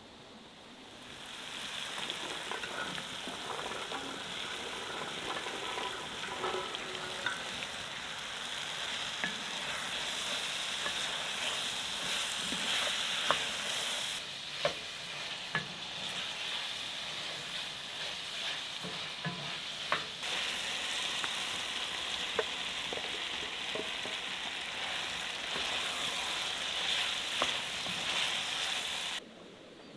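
Garlic scapes, with tomato and pieces of beef, sizzling as they fry in a cast-iron skillet, with a spatula stirring them and clicking against the pan now and then. The sizzle comes in about a second in and cuts off just before the end.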